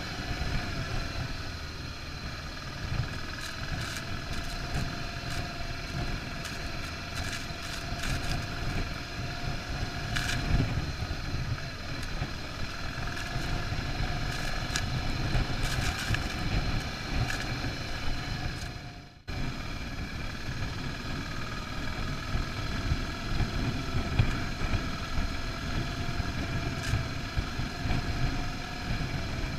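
Single-cylinder 650 dual-sport motorcycle engine running steadily at cruising speed on a dirt track, heard from on board with wind noise on the microphone and scattered sharp ticks and rattles. The sound drops out briefly about two-thirds of the way through, then resumes.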